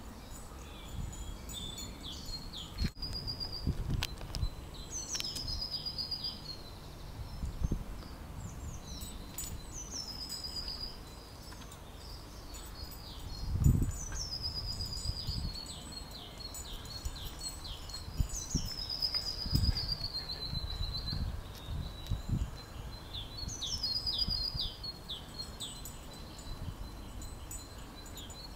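A songbird sings short repeated phrases every few seconds, each a high falling note followed by a quick run of lower notes. Underneath runs a low outdoor rumble, with a thump about halfway through.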